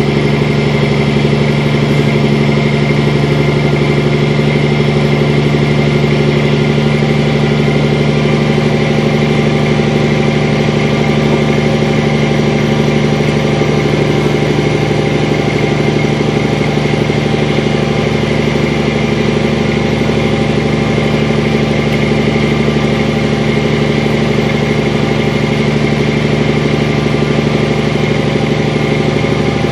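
Truck engine running at a steady, even speed while the truck drives along a gravel road, heard from inside the cab as a constant low drone.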